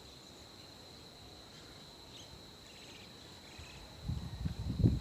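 Steady high-pitched insect drone, with a few faint bird chirps in the middle and a burst of low rumbling in the last second.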